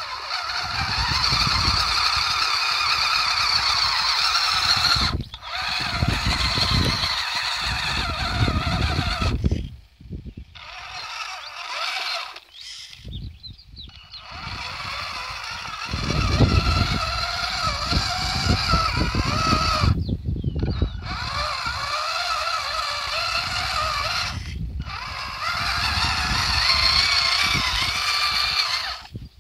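Radio-controlled toy tractor's small electric motor and gearbox whining as it drives over gravel, the pitch wavering with speed and the whine cutting out briefly several times, over a low rumble.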